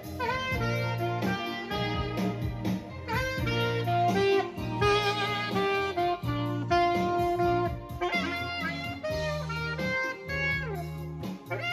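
Live saxophone playing a jazzy melody with sliding notes, over guitar accompaniment and a steady bass line.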